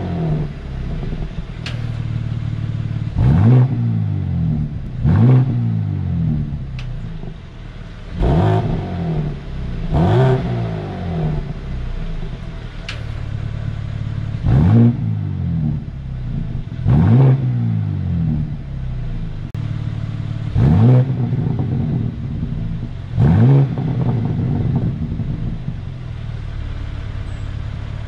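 2022 BMW M3 (G80) S58 twin-turbo inline-six, warm and in Comfort mode, idling and blipped in standing revs: about eight short revs, each rising and falling back to idle. The first four are with the exhaust valves under stock automatic control. About halfway through, the valves are held open by the CG VSC-2 exhaust valve controller for the last four.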